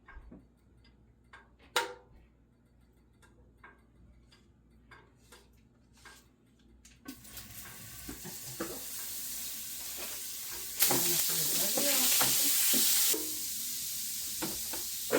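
Salted butter and oil sizzling in a preheated baking tray. The hiss builds up about halfway through and is loudest for a couple of seconds later on. Before it, only quiet clicks and scrapes of mixing.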